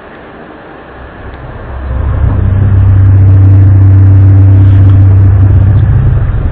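A deep, steady drone on one low pitch with a few overtones, swelling in over a background hiss about a second in and holding loud and level, of the kind circulated as the mysterious trumpet-like 'sky sounds' of 2015.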